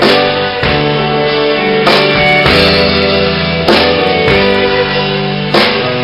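Fiddle playing an instrumental tune, backed by electric guitar and drums.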